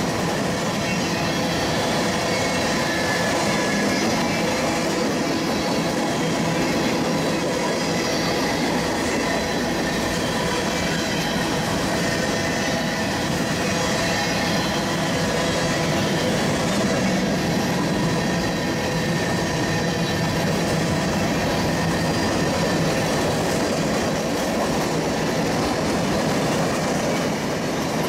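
Empty centerbeam flatcars and then coal hoppers of a Norfolk Southern freight train rolling past on steel rails: a steady wheel-on-rail rumble and rattle, with a thin high ringing running through it.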